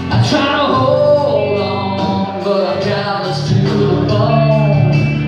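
Man singing long, held notes into a handheld microphone over loud backing music, heard through the stage sound system.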